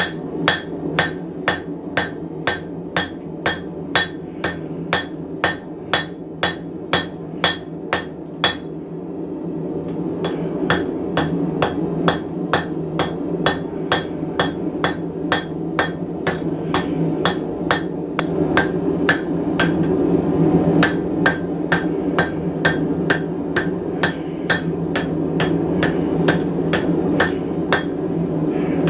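Blacksmith's hammer striking hot steel bar stock on an anvil in a steady rhythm, about two to three ringing blows a second, flattening the bar down to thickness; the blows pause briefly about a third of the way in, then resume. A steady low rumble runs underneath.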